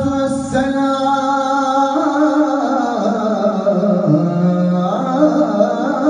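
Solo male voice singing a Turkish salâ in makam Hüseyni into a microphone, without words at this point: one long held note, then an ornamented run that falls in pitch and climbs back up near the end.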